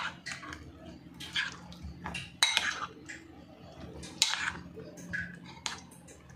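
Steel spoon stirring cauliflower florets through thick batter in a glass bowl, clinking and scraping against the glass in irregular strokes, with soft wet squelches in between.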